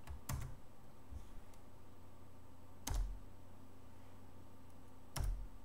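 Computer keyboard being typed on in short, sparse spurts, with three louder key strikes: one just after the start, one about three seconds in and one near the end.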